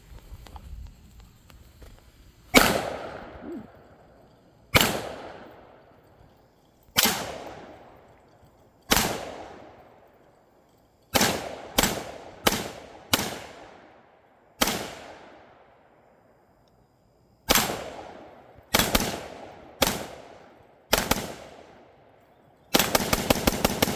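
Gunshots from a 5.56 rifle: about fourteen single shots at a slow, uneven pace, each ringing out for about a second, then a rapid burst of about a dozen shots near the end.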